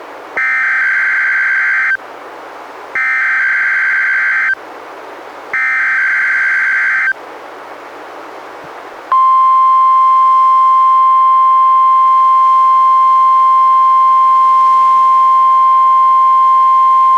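NOAA Weather Radio alert signal, the coding for a Required Monthly Test: three identical bursts of digital data tones (the SAME header), each about a second and a half long with receiver hiss between them. After a short gap, the steady 1050 Hz warning alarm tone starts about nine seconds in and holds.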